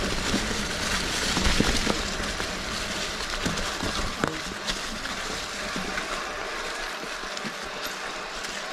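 Mountain bike riding a forest singletrack: a steady rushing of tyres on dirt and air past the bike, with scattered knocks and rattles as it rolls over bumps. The low rumble is heavier in the first half and eases off after that.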